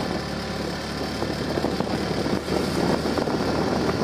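TVS NTorq scooter's single-cylinder engine running steadily at low road speed, under wind rush and tyre noise on the wet road.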